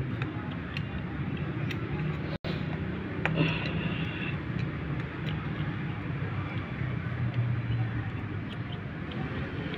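Light metal clicks of pliers and a pick working the spring of a water pump's mechanical seal on the motor shaft, over a steady low background rumble.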